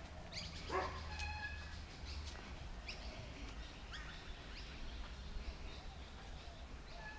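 A series of short animal calls scattered over several seconds, the strongest about a second in, over a steady low rumble.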